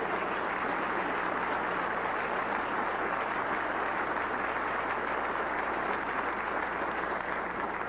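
Audience applauding steadily, with the clapping dying away near the end.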